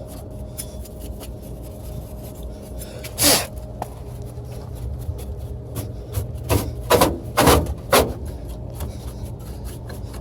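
Rasping and rubbing from dust and grime being scrubbed out of an HVAC unit, with scattered small clicks and a few louder scraping strokes, one about three seconds in and a cluster around seven seconds in. A steady low hum runs underneath.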